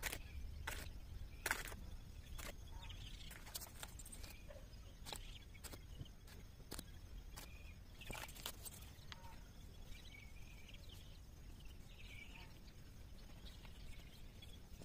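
Faint, scattered clicks and taps over a steady low rumble, coming thickest in the first half.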